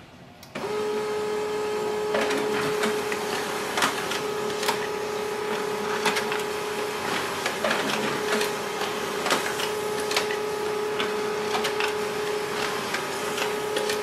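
HP LaserJet Pro MFP 3101fdw laser printer starting up about half a second in and printing a two-sided job: a steady motor tone with frequent clicks and clacks as paper feeds through and is turned for the second side.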